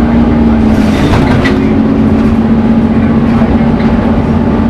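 Scania N230UD Omnicity bus's five-cylinder diesel running under way, with a steady drone. Its pitch steps up slightly about a second in, along with a short burst of rattling.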